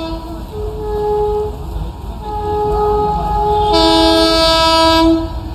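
Train horn sounding in a series of long blasts, a lower pitch and a higher one taking turns, over a low rumble from the approaching train. The last blast, about four seconds in, is the longest and loudest.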